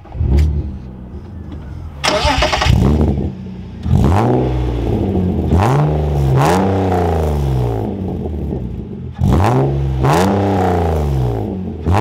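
BMW E36 M3's straight-six engine starting up just as the key is turned, running briefly, then revved in about six quick throttle blips, each climbing and falling back to idle.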